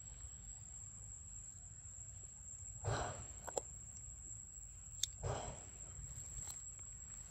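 A macaque biting and tearing a green plant stalk: three short tearing sounds about two seconds apart, with a few sharp crunchy clicks between them as it chews.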